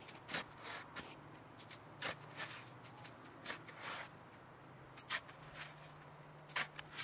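A wooden shovel scraping and scooping snow: short crunching strokes about a second apart, some in quick pairs.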